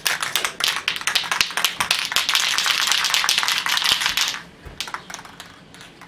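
Aerosol can of clear spray lacquer shaken hard, its mixing ball rattling rapidly for about four seconds, then a few fainter clicks.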